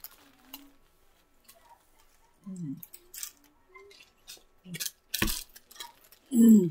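Scattered small crunches and crackles of potato chips being eaten and a foil chip bag handled, with a sharp knock about five seconds in and short hummed voice sounds, the loudest near the end.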